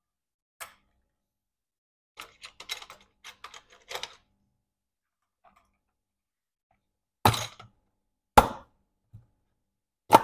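Small clicks and taps, then a few louder knocks about a second apart: a MacBook Pro and its aluminium bottom case being handled on a bench as the back cover comes off.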